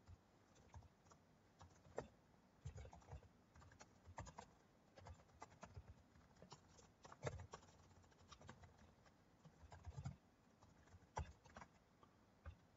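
Faint, irregular clicks of a computer keyboard being typed on, some keystrokes coming in quick runs.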